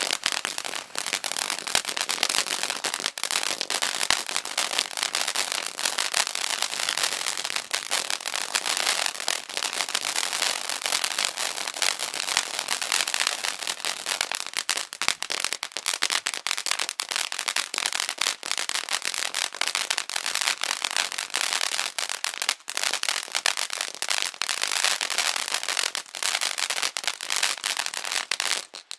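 Black Cat Wild Blue Yonder 200 g firework fountain spraying: a steady hiss packed with dense, rapid crackling, which stops abruptly right at the end.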